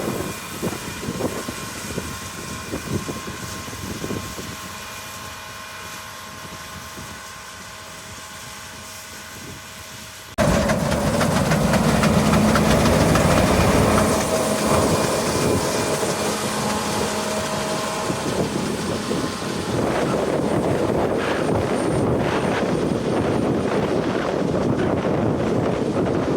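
Farm machinery engines running steadily. About ten seconds in, the sound cuts suddenly to a louder, rougher engine noise.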